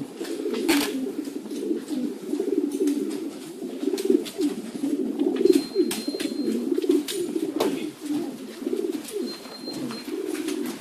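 A flock of racing pigeons cooing together in a dense, continuous chorus of overlapping coos, with occasional sharp clicks and knocks.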